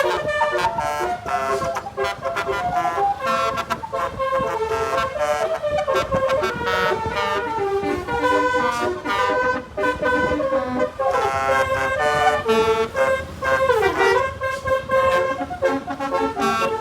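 A bus's 'telolet' musical horn sounding a quick, changing melody of tones, with a swooping fall and rise in pitch about 14 seconds in.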